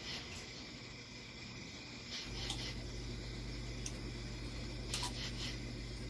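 Brief water splashing as a dwarf caiman lunges at a fish, then a steady low hum from about two seconds in, with a few short, sharp clicks scattered through it.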